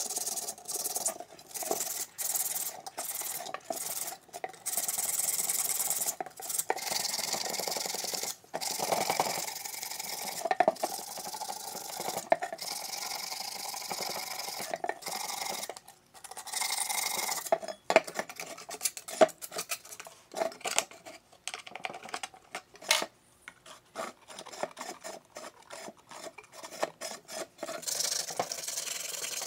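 Sandpaper rubbed by hand over a rusty steel loudspeaker frame and magnet to clean off rust: repeated scratchy back-and-forth strokes, turning into shorter, choppier strokes with small clicks in the second half.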